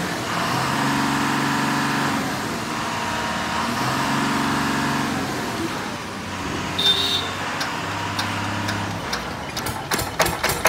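Steady engine and traffic hum in the background. About a second before the end, the crank handle starts turning a Bajaj-M single-cylinder diesel engine on a 5 kVA generator set, with sharp knocks that come quicker as it spins up.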